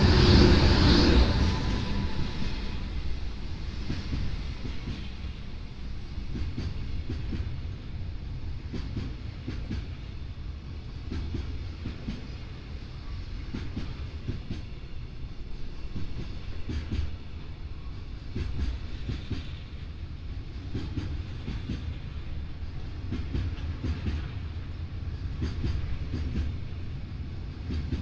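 Freight train passing close by: the EH500 electric locomotive goes by loudest in the first two seconds with a steady whine, then a long rake of container wagons rolls past, wheels clattering over rail joints in repeated groups.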